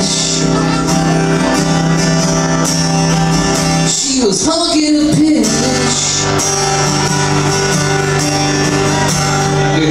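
Live band music: sustained chords ringing steadily, broken about four seconds in by a second or so of sliding, bending notes before the held chords return.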